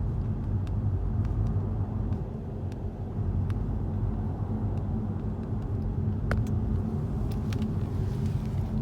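Car in motion, heard from inside the cabin: a steady low rumble of engine and road noise with a faint hum, and scattered light clicks.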